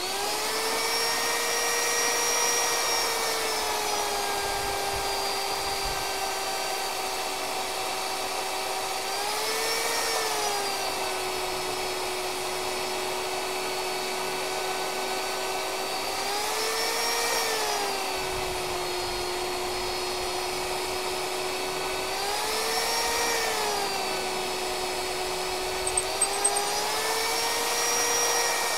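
Magnetic drill's electric motor running as it bores through a steel truck frame rail, lubricated with cutting fluid. Its pitch sags under cutting load and rises briefly about every six seconds as the feed pressure eases, with a few quick ticks near the end.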